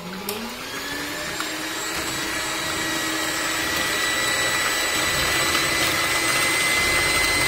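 Philips electric stand mixer switched on at high speed, its twin beaters whisking eggs and sugar in the bowl. There is a click at the switch, the motor winds up over the first second or so, then it runs as a steady whine that grows slowly louder.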